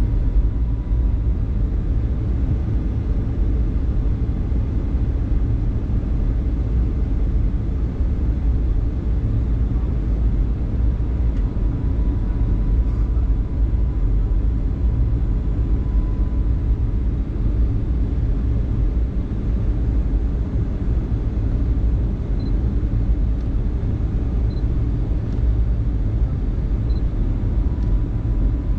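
Steady low rumble of a Boeing 757-200's engines and rushing air, heard from inside the passenger cabin, with a faint thin steady tone coming and going partway through.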